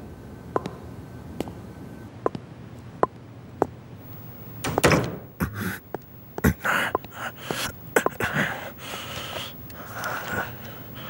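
Footsteps on a hard floor, a slow walk of single steps. About four and a half seconds in, a louder stretch of knocks and rustling takes over.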